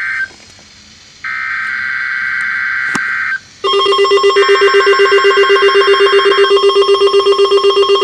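NOAA Weather Radio SAME digital header bursts: harsh, buzzing data warbles a second or two long, separated by short gaps. About three and a half seconds in, a loud electronic alert beep starts pulsing about eight times a second, and another data burst plays over it.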